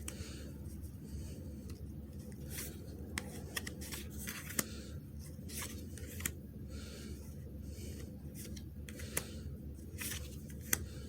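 Magic: The Gathering cards being handled and slid against each other as a booster pack is sorted through: quiet soft swishes and light ticks, scattered irregularly, over a low steady hum.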